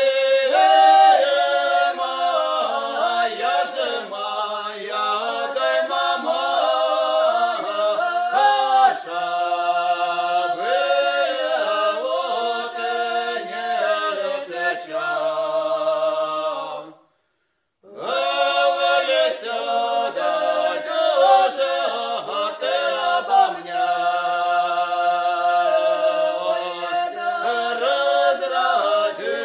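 Unaccompanied singing voices performing a song. The singing breaks off for about a second a little past the middle, then the next phrase begins.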